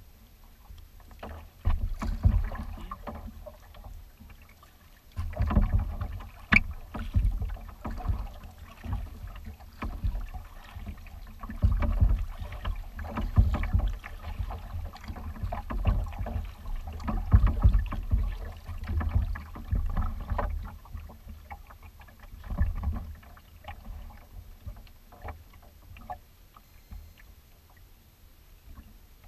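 Water slapping and splashing at a kayak's hull as it is paddled across choppy water, with deep rumbling surges of wind buffeting the microphone that come and go every second or two.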